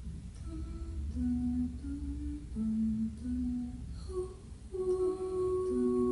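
A person humming a slow, wordless melody of short held notes, moving into one longer note about three-quarters of the way through that sags slightly in pitch.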